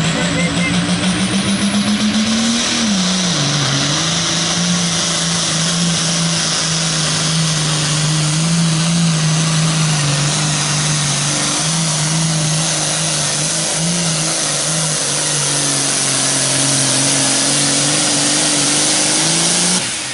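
Turbocharged John Deere diesel pulling tractor at full power dragging a weight-transfer sled, with a high turbo whistle over the engine note. The engine pitch climbs for the first couple of seconds, drops as the sled's load bites, then holds steady. The engine cuts back abruptly near the end as the pull finishes.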